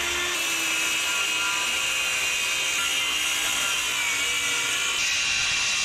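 Circular saw cutting through a sheet of plywood, its steady whine dipping slightly in pitch a couple of times as the blade works through the cut.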